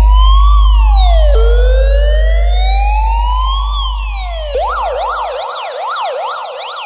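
Electronic police-siren ringtone. A slow wail rises over about two seconds and drops quickly, twice, then about four and a half seconds in it switches to a fast yelp of about two and a half up-and-down sweeps a second. A deep low hum under the wail fades out shortly after the switch.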